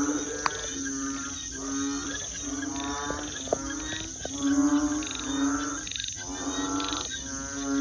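A chorus of frogs calling, their croaks repeating about once a second and overlapping, over a steady high trill of crickets.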